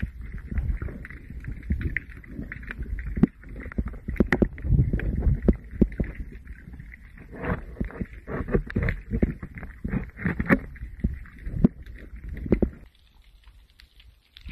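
Underwater audio on a camera in a waterproof housing: muffled water movement and low rumble with many irregular clicks and knocks, falling much quieter near the end.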